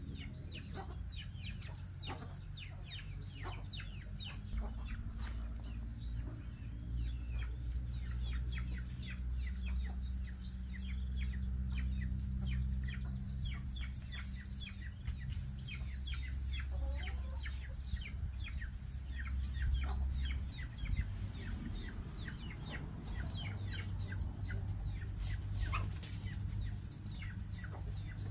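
Chickens clucking, with a near-constant run of short, high chirps that fall in pitch, several a second, over a steady low rumble.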